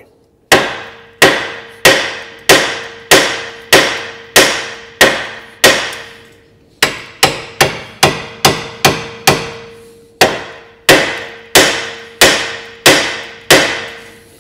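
Hammer blows on the side of a Volvo V50's steel front hub carrier, about twenty sharp metallic strikes to shock the ball joint's taper loose without a splitter. They come at about one and a half a second, with a quicker run of about eight blows in the middle. A steady ring sounds under the blows.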